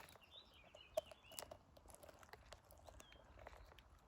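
Faint high chirps and short calls of small birds, with scattered light clicks and rustles of vegetation being handled.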